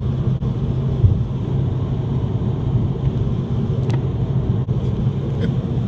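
Steady low drone of a car's engine and road noise heard inside the cabin while driving.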